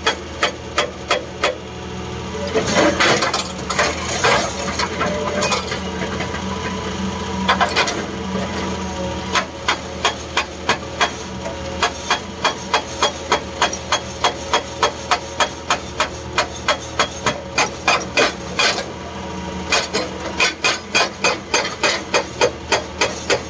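Excavator-mounted hydraulic breaker hammering rock, a fast run of blows about three to four a second over the excavator's steady engine drone. The hammering is broken and irregular for the first several seconds, then runs steadily, with a short pause near the end.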